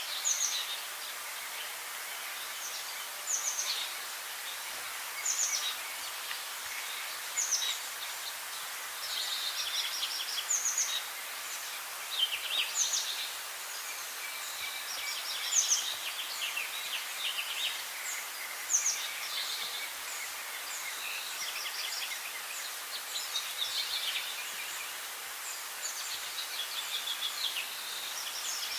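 Songbirds singing: short high notes that drop in pitch, repeated every couple of seconds, mixed with fast rattling trills, over a steady high hiss.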